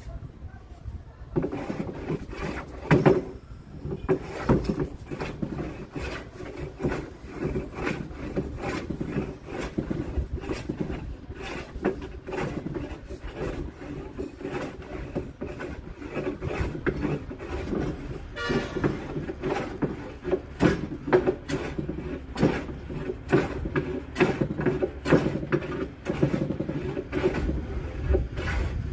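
Hand tool worked back and forth along the edge of a wooden board: a quick, uneven run of short strokes, several a second.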